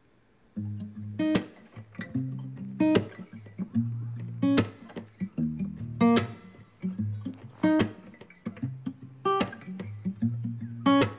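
Background music: plucked guitar over a bass line, with a sharp beat about every one and a half seconds, starting about half a second in.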